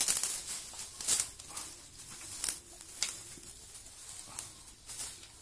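Dry straw and twigs rustling and snapping as they are pulled apart and fed into a clay cookstove fire, with sharp irregular crackles about once a second over a steady rustle.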